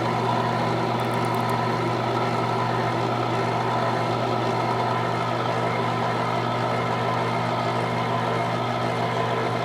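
Electric can opener motor running with a steady hum as it turns a tuna can and cuts around the lid on its own.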